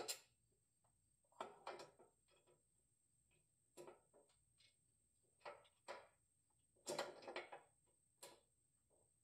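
Faint, scattered clicks and light metal knocks as the new spare tire carrier and its bolts are handled and held up against the underside of the truck, about half a dozen irregular taps.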